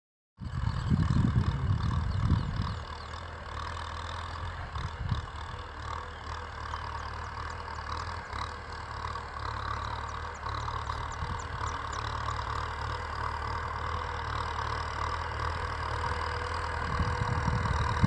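Kubota M6040 SU tractor's diesel engine running steadily under load as it pulls a plough, heard from a distance. Low buffeting noise on the microphone in the first couple of seconds and again near the end.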